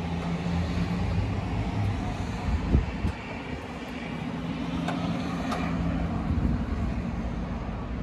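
Road traffic, with a vehicle engine humming as it runs past, and a single knock about three seconds in.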